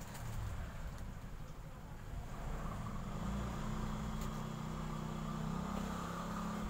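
Electric hair clipper running with a steady motor hum, growing louder about two seconds in.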